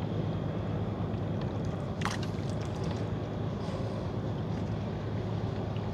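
Small fishing boat's motor running steadily, a low drone under a hiss of water and wind. A short sharp click about two seconds in.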